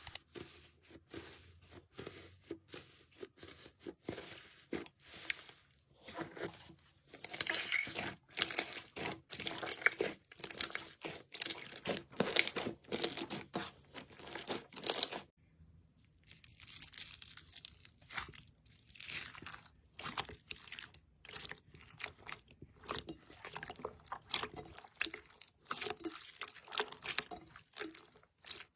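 Slime being squeezed and worked by hand, giving dense, irregular crackling and crunching clicks, with a brief pause about fifteen seconds in.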